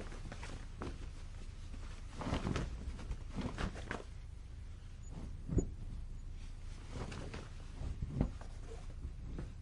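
Cloth on a clothesline flapping gently in the wind, in irregular soft flaps and rustles over a low wind rumble. The strongest flaps come about two and a half, five and a half and eight seconds in.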